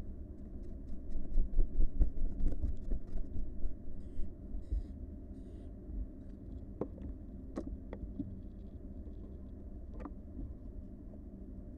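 Barn owl nestlings moving about in a wooden nest box: a run of bumps and scratches, then three short hissy calls about four seconds in, and a few sharp taps later on, over a low steady rumble.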